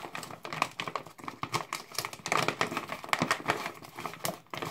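Plastic pouch of frozen blueberries crinkling and crackling in irregular bursts as hands grip and tug at its top, struggling to tear it open.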